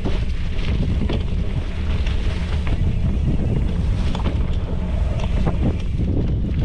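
Yeti SB115 mountain bike rolling fast over dirt singletrack on Maxxis Minion DHR knobby tyres, heard from a handlebar-mounted camera: a steady low rumble of tyres and frame vibration with wind on the microphone. Irregular clicks and rattles from the bike and the trail come through it.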